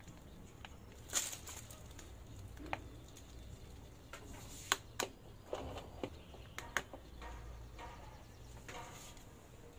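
Quiet handling sounds of piping and spreading chocolate mousse in a metal heart-shaped cake ring: a scattering of sharp clicks and taps, the loudest a little under 5 seconds in, with soft scraping between them.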